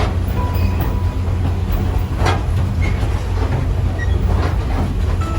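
Railway passenger car of a steam excursion train rolling along the track: a steady low rumble with a few short knocks from the wheels and running gear.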